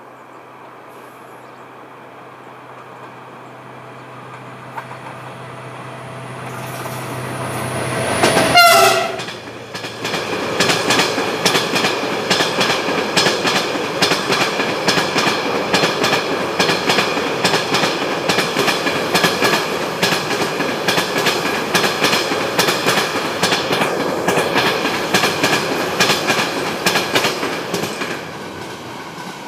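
Freight train of tank wagons passing close by. The locomotive's low hum grows as it approaches, and a short, loud pitched sound comes as it passes about eight seconds in. Then comes a long, steady rhythmic clatter of wagon wheels over the rail joints, which fades near the end.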